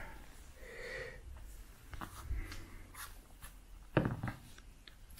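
Faint soft clicks and taps of dice being handled and rolled onto a soft cloth gaming mat, scattered through the second half, with a short vocal sound about four seconds in.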